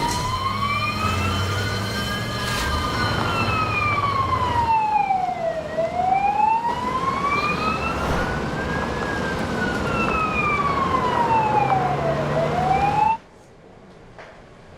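Emergency vehicle siren, a slow wail rising and falling twice, with a low vehicle rumble beneath. It cuts off suddenly about thirteen seconds in.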